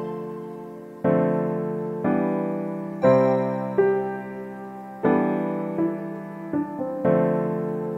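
Background piano music: chords struck about once a second, each fading away before the next.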